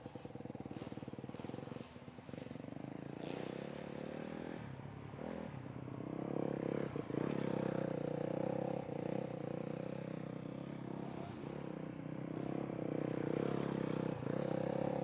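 Motocross dirt bike engine running hard around the track, its revs dropping briefly every second or two as the throttle is chopped or a gear changed, then picking up again.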